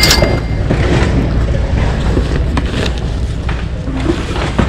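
Insulated nylon jacket rustling and crinkling as it is handled right by the microphone, scattered short crackles over a steady low rumble.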